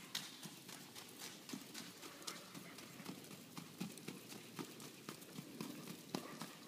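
Hooves of a young ridden horse striking dirt and grass at a brisk gait, a quick running patter of hoofbeats.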